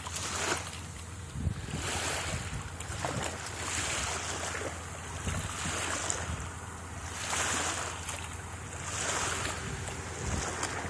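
Small waves washing up and draining back on a sandy beach, the noise rising and falling every second or two, with wind rumbling on the microphone.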